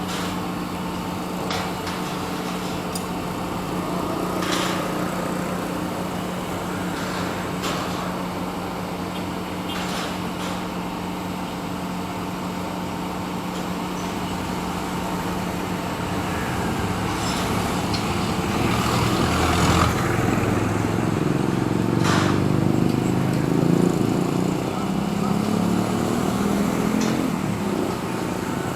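Steady engine drone of machinery and traffic at a road construction site, with a few sharp knocks now and then. From about halfway through, an engine grows louder and its pitch shifts for several seconds before easing off near the end.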